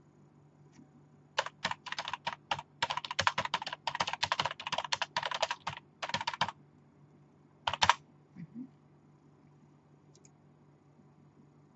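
Typing on a computer keyboard: about five seconds of rapid keystrokes, then a short final burst of keys about a second later.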